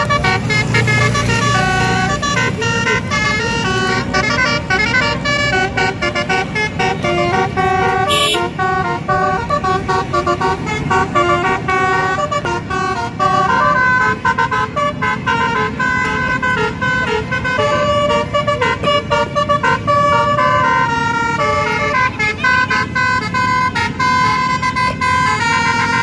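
A bus's basuri-type telolet horn playing a melody: a quick run of held notes stepping up and down in pitch, over the rumble of traffic.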